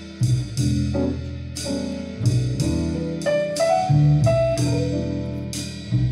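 Recorded music with struck piano notes over bass, played back through Aurum Cantus New Grand Supreme floor-standing loudspeakers and picked up across the room.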